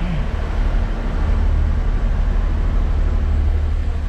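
Steady low rumble inside a train carriage.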